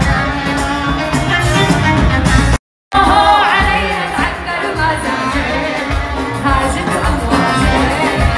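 A woman singing live into a microphone over amplified band music, with a pulsing beat. The sound cuts out completely for a moment about a third of the way in, then the song carries on.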